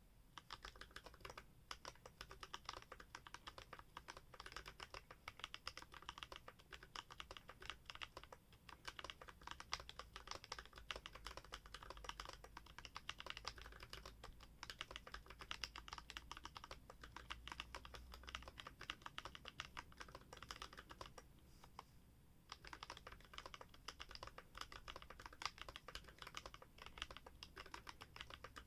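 Continuous fast typing on a Quefrency split mechanical keyboard with lubed, filmed Gazzew Boba U4T tactile switches, PBT Cherry-profile keycaps, an FR4 plate and a 3D-printed case. The typing pauses for about a second roughly three-quarters of the way through, then carries on.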